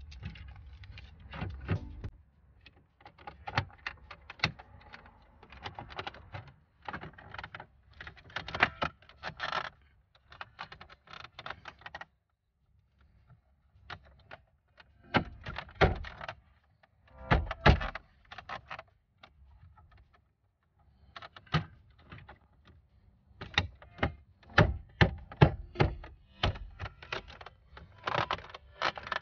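Plastic dashboard trim panels of a car being pressed and tapped back into place, with irregular clicks, snaps and knocks as the clips go in, and a brief silence partway through.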